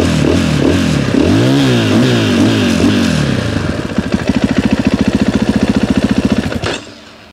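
2023 KTM 450 EXC-F's single-cylinder four-stroke engine revved in quick repeated blips, then settling about four seconds in to a steady, evenly pulsing idle. It is shut off and cuts out near the end.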